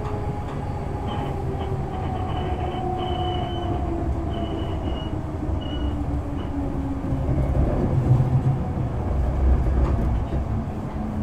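Kintetsu 6020 series electric train running, heard from inside the car: its motor whine falls steadily in pitch as the train slows. Short high squeals come in the first half, and a louder low rumble comes near the end.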